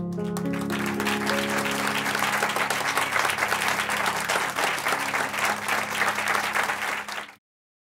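Grand piano's final chords ringing out as a studio audience breaks into applause. The applause cuts off suddenly near the end.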